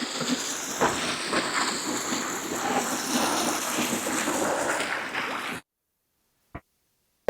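Rushing water, a steady full noise that cuts off abruptly about five and a half seconds in, followed by near silence and a faint click.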